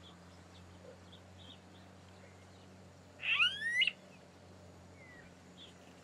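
Smooth-billed ani giving a single rising, whining call lasting under a second, about three seconds in.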